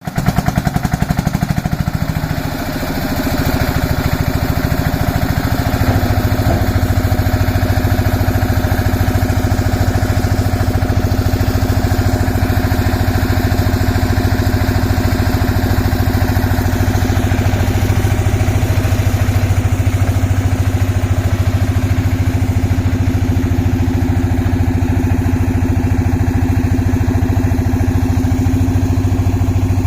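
Engine of a concrete mixer with an attached ladder hoist running steadily. It dips and shifts pitch about two seconds in, then settles into a steady run.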